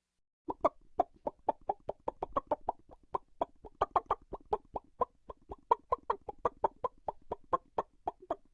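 Cartoon-style chicken clucking sound effect: a fast, unbroken run of short clucks, about five a second, beginning about half a second in.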